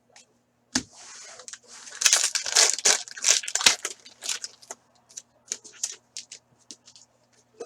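Foil wrapper of a hockey card pack being torn open and crinkled, the loudest part a few seconds in, followed by scattered light clicks and ticks as the cards are handled.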